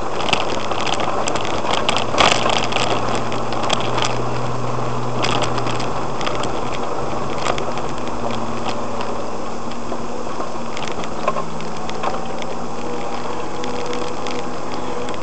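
Off-road vehicle's engine running steadily as it drives up a rough dirt track, heard from inside the cabin, with frequent clicks, knocks and rattles over the bumps. The engine note shifts about two-thirds of the way through.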